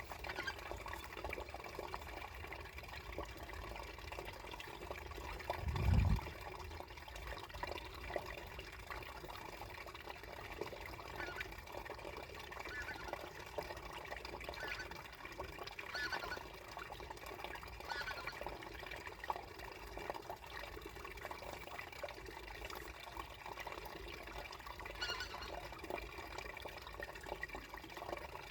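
Water trickling and gurgling beneath ice, steady with small bubbling notes. There is one short, low thump about six seconds in.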